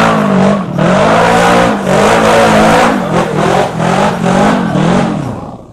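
Side-by-side UTV engine revving hard under full throttle on a steep hill climb, its pitch rising and falling over and over as the throttle is worked. It drops away near the end.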